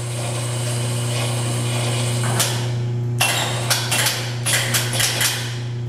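Air-powered vacuum lifter working on a granite slab: a steady hum, then a run of sharp knocks and short hisses from about two and a half seconds in until just past five.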